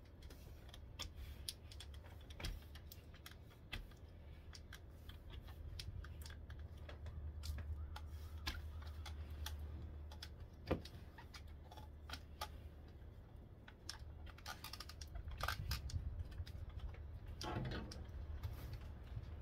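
Snow brush and scraper working over a pickup truck's windshield: irregular scratching strokes and sharp clicking taps of the brush head and scraper on the glass and wipers, with a longer scrape near the end, over a low steady rumble.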